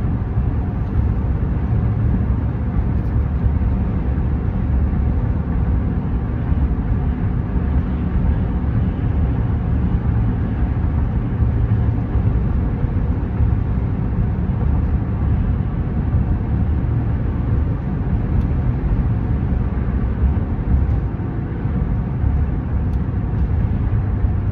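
Steady road and engine noise heard from inside a moving pickup truck's cab, a constant low rumble.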